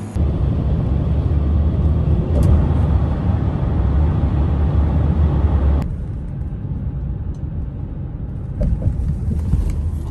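Steady low rumble of road and engine noise heard from inside a moving road vehicle. About six seconds in it changes abruptly to a slightly quieter, duller rumble.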